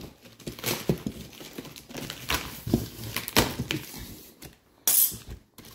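Cardboard generator box being cut open with a blade and its flaps pulled back: irregular scraping, crinkling and knocks, with a short loud tearing noise about five seconds in.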